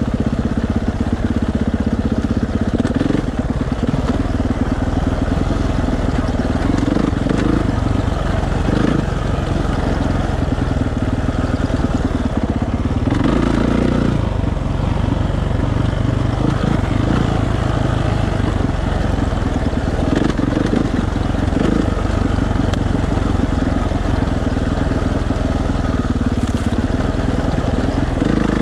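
Dirt bike engine running at low revs with small changes in speed as the bike rolls down a rocky trail, its tyres and chassis working over loose rock.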